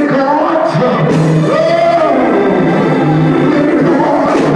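Church music: an organ holding sustained chords, with a voice singing over it.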